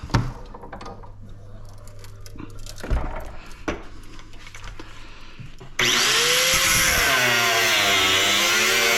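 Quiet handling clicks and a couple of knocks, then about six seconds in a power tool starts suddenly and runs loud, its pitch dipping and rising as it works the metal.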